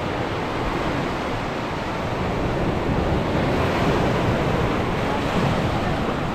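Ocean surf breaking and washing in over shallow sand around beach boulders, a steady wash that swells louder towards the middle.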